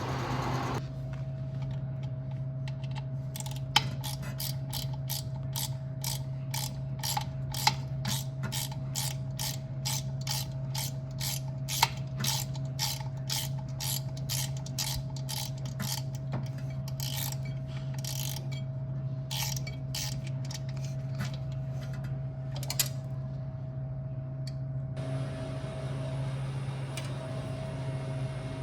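A ratcheting hand tool clicking steadily at about two clicks a second as screws are worked, stopping about two-thirds of the way through. Underneath, the cooler's fan motor keeps up a steady hum.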